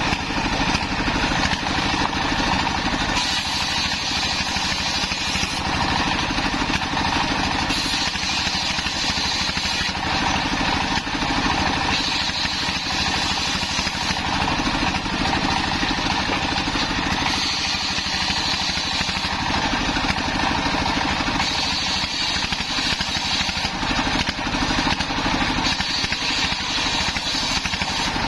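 A belt-driven homemade table circular saw, powered by a single-cylinder diesel engine running steadily, ripping waru (sea hibiscus) timber; the blade's high cutting whine comes and goes several times as boards are pushed through.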